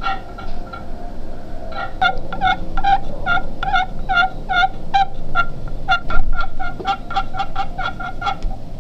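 Handheld friction pot turkey call scratched with a wooden striker, giving a long run of short turkey yelps at about three a second, with a pause of about a second after the first few. A brief low bump sounds about six seconds in.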